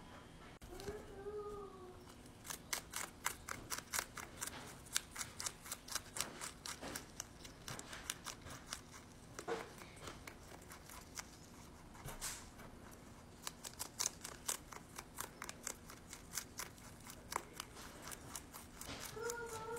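A rabbit chewing fresh greens (parsley and lettuce leaf): rapid, crisp crunching clicks, several a second, in two long runs with a short pause in between.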